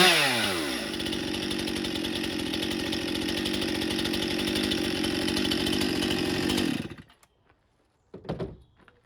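Stihl MS 261 C-M two-stroke chainsaw coming down off the throttle to a steady idle, then shut off, stopping abruptly about two seconds before the end. A single short thud follows about a second later.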